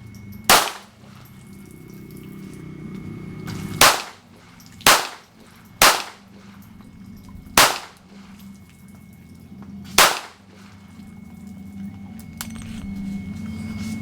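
.22 Ruger pistol firing six single shots at an uneven pace, the gaps between them running from about one second to over two seconds.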